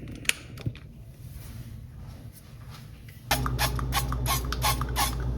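Kitchen handling sounds while preparing food: two sharp clicks, then about three seconds in a steady low appliance hum starts, with a quick run of small clicks and taps over it.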